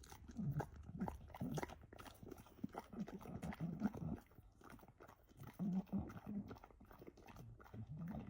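A bulldog chewing and smacking as it eats, in short, quiet, irregular bursts with a couple of brief pauses.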